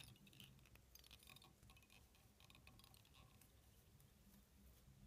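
Near silence: faint scratchy crackles and ticks of fingers working ice dubbing fibres around a hook shank and tying thread, mostly in the first second and a half, over a low steady hum.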